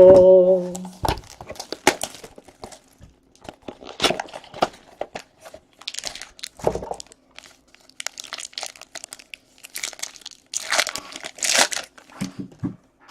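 Trading-card pack wrappers crinkling and tearing as packs are opened, with cards and packaging handled in scattered rustling bursts; the loudest rustle comes near the end.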